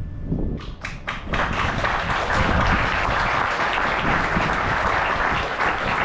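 Audience applauding: a few scattered claps that swell within about a second into steady applause.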